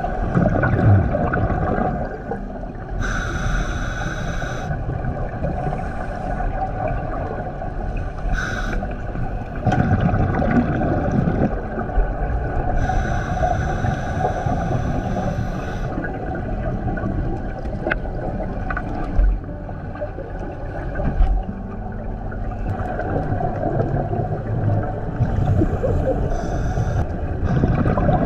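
Scuba regulator breathing heard underwater: hissing inhalations lasting a second or two, alternating with rumbling rushes of exhaled bubbles.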